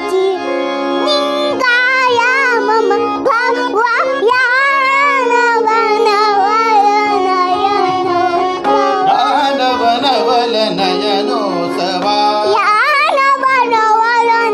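A voice singing a wordless, richly ornamented Indian classical-style melodic passage with quick wavering turns, over a steady sustained drone accompaniment.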